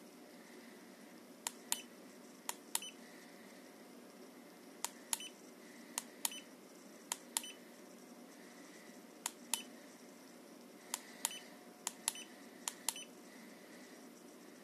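Keypad button of a KXL E40 laser rangefinder pressed again and again: about nine pairs of sharp clicks, press and release, one pair every second or so. A short soft beep from the rangefinder follows several of the presses.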